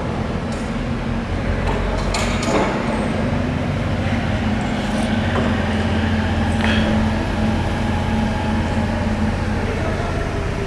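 Marion paddle mixer running, its 30 hp electric motor and paddle shaft giving a steady mechanical hum, with a few light clicks and knocks about two seconds in.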